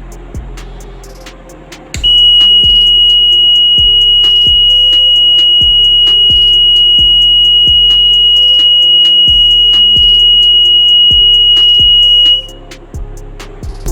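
NE555 power-restoration alarm's buzzer sounding one steady high-pitched tone for about ten seconds. It starts about two seconds in and cuts off suddenly near the end. Background music with a steady beat runs underneath.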